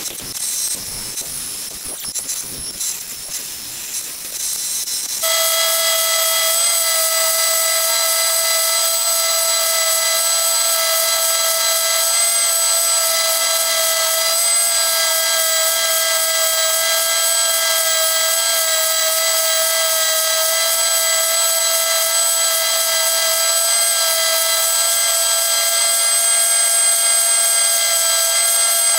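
A bandsaw cutting through a wooden blank for about five seconds. It then switches abruptly to a spindle sander running with a loud, steady high-pitched motor whine while the edges of the cut piece are sanded.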